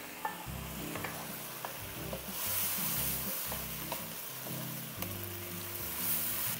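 Chicken adobo with tomatoes and green chilies frying in oil in a wok, sizzling steadily while being stirred, with a few light knocks of the spoon; the sizzle swells for a moment a couple of seconds in.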